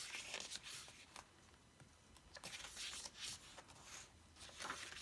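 Faint rustling and light handling noises of thick cardboard and paper album pages being turned and moved, in several short swishes.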